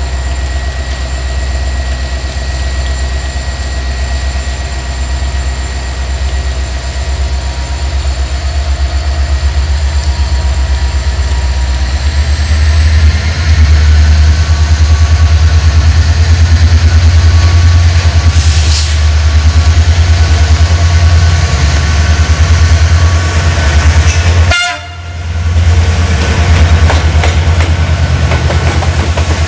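Diesel engine of a CFR GM class 65 diesel-electric locomotive throbbing as it hauls a passenger train toward and past the listener, growing louder about halfway through as it comes close. The sound briefly drops out about three-quarters of the way in.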